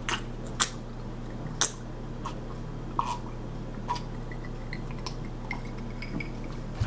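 Two people drinking from glasses: scattered gulps and small mouth clicks, about one a second, over a steady low hum.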